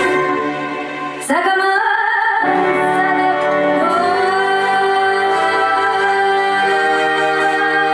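A woman singing a slow song with musical accompaniment, holding long notes. Her voice slides up into a held note about a second in, and again about halfway through.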